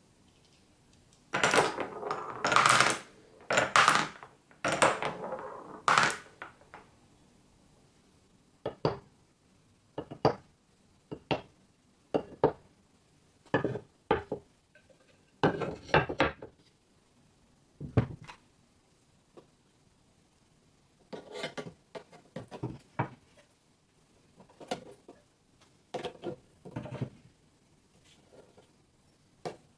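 Glass marbles clattering and rolling through a grooved wooden marble run, loudest for a few seconds near the start, followed by separate sharp clacks and knocks of glass and wood.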